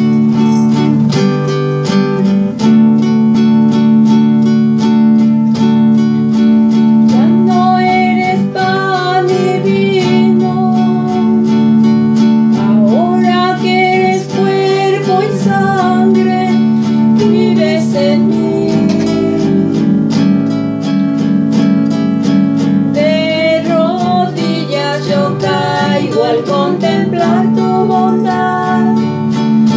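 Eucharistic hymn with acoustic guitar strumming over held low notes. A singing voice carries the melody from about seven seconds in.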